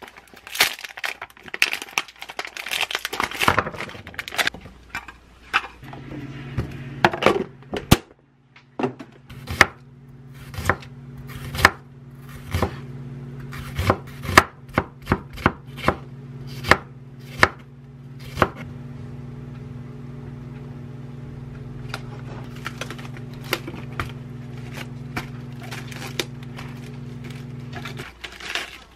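Chef's knife chopping an onion on a wooden cutting board: a long run of sharp, irregular knocks, thickest in the first eighteen seconds. A steady low hum starts about six seconds in and stops shortly before the end, when iceberg lettuce leaves are being pulled apart.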